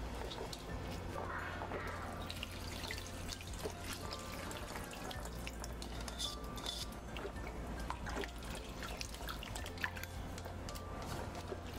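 Cooking liquid poured into a hot pan of sautéed rice, peas and mushrooms, with many small crackles and drips as it spreads through the rice.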